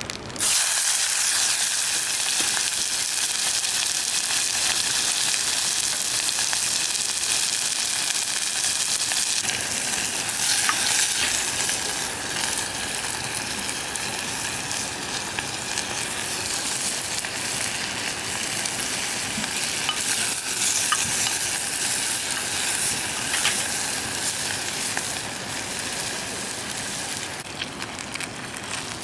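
Food sizzling as it fries in a hot pan, a steady hiss with scattered small pops, starting abruptly just after the start.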